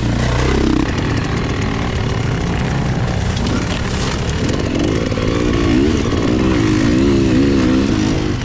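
GasGas dirt bike engine running, its pitch rising and falling repeatedly from about halfway through as the throttle is worked.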